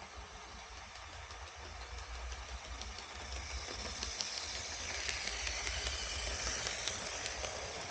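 HO scale Alaska Railroad F7A model diesel locomotive and its freight cars running on the track, with a steady low rumble. The running noise and light clicking get louder as the train comes round the curve and passes close by, loudest about five to seven seconds in.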